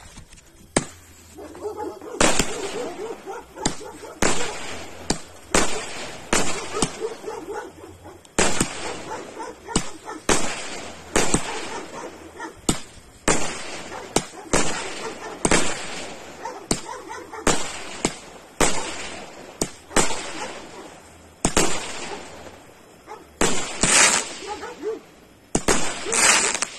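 A 49-shot consumer fireworks cake firing shot after shot: sharp bangs with crackle, about one or two a second, starting about two seconds in and loudest near the end.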